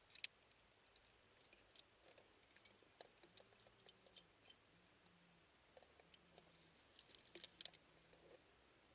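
Near silence broken by scattered faint clicks, with one sharper click just after the start and a short cluster of clicks near the end: climbing gear being handled at a chained belay anchor.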